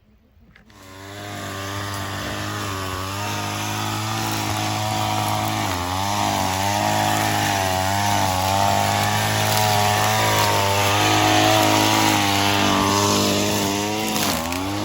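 A gas string trimmer (weed whacker) engine comes in abruptly less than a second in and runs loudly, its speed repeatedly rising and dipping as it is throttled while cutting.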